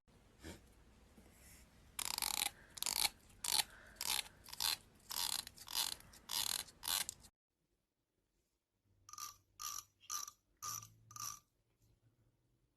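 Teeth of a comb being scratched in quick rasping strokes, about two a second. It stops abruptly about seven seconds in, and a second run of sharper strokes starts after a short pause. This is the sound said to make cats gag.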